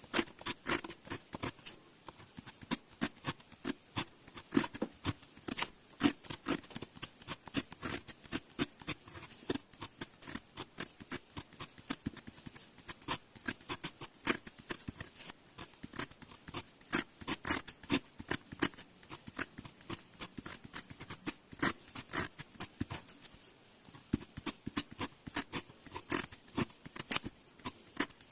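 Glass pen nib scratching and ticking across paper in quick irregular strokes as characters are written, with brief pauses between runs.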